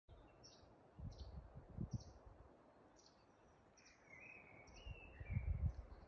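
Songbirds calling: short high chirps repeating about twice a second, with a lower warbling phrase about four seconds in. Low thumps about a second in and again near the end are the loudest sounds.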